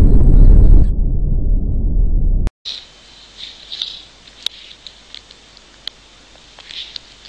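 A loud, low rumbling noise that drops to a fainter rumble after about a second and cuts off at about two and a half seconds. After the cut it is quiet, with scattered faint clicks and a few very short, high kitten squeaks.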